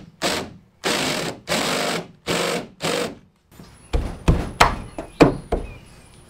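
Ryobi cordless drill with a step bit cutting out a hole in a van's sheet-metal door, running in about six short bursts that each stop abruptly. Then about five sharp knocks as the metal mounting plate is test-fitted against the hole.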